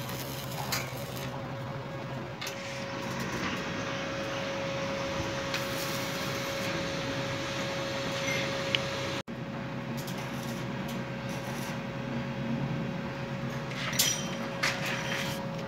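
A steady machine hum with a constant tone. It drops out for an instant about nine seconds in, and a few light clicks and taps come near the end.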